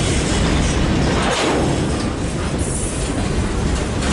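Loaded grain hopper cars of a BNSF freight train rolling past close by: the steady rumble of steel wheels on the rails, with a brief louder swell of wheel noise about a second and a half in.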